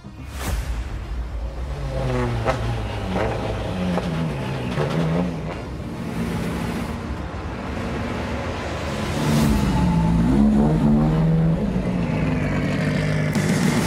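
Race car engine revving and accelerating, its pitch falling and rising several times, loudest about nine to eleven seconds in.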